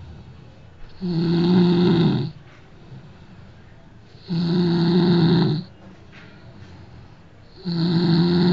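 A person snoring loudly in a steady rhythm: three snores, each a pitched rasp lasting a little over a second, coming about every three seconds, with quiet breathing between.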